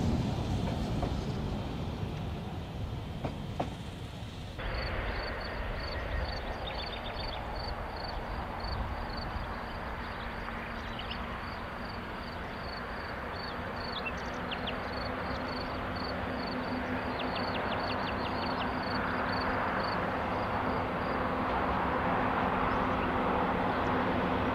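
Narrow-gauge diesel locomotive heard from a distance as it approaches with its train. Its engine hum grows slowly louder over the second half, over a high chirp repeating about three times a second. The first four and a half seconds hold a different stretch of train noise that cuts off suddenly.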